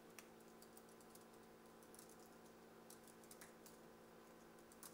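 Faint typing on a computer keyboard: quick, irregular key clicks over a low steady hum.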